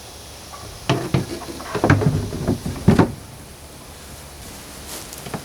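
A run of knocks and clunks from things being handled and set down, about one to three seconds in, the loudest at the end of the run.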